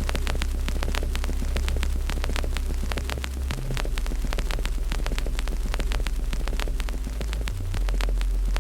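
Wood fire in a fireplace crackling and popping: many sharp, irregular crackles over a steady low rumble.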